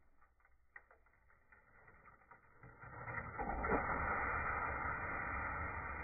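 Hot steel tin-can crucible quenched in a bucket of water. After a few faint metal clicks, a loud steady sizzling hiss of boiling water starts about three seconds in and carries on as the can cools.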